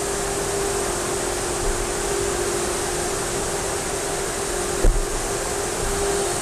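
Motor-driven fan running steadily: an even whoosh with a steady hum, and one dull thump about five seconds in.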